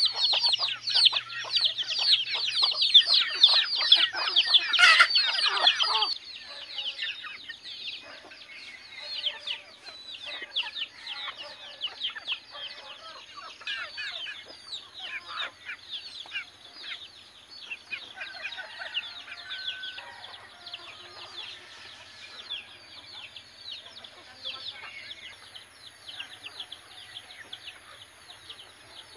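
Flock of native chickens calling, a dense stream of quick high chirps and clucks. It is loud for the first six seconds, then drops abruptly to a quieter, continuing run of calls. There is a single sharp click about five seconds in.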